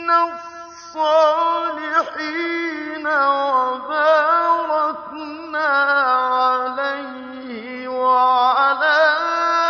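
Quran recitation in the slow, melodic mujawwad style by a solo male reciter, who draws out long held notes with wavering ornaments over several phrases. The pitch sinks gradually lower through the middle and rises again near the end.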